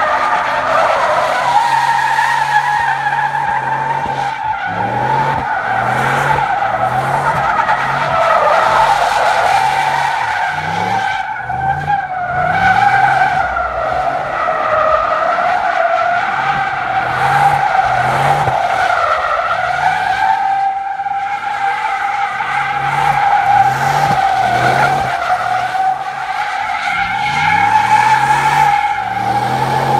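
Car tyres squealing continuously as the car spins donuts, the screech wavering in pitch. Underneath, the engine revs up and falls back about once a second as the driver works the throttle to keep the wheels spinning.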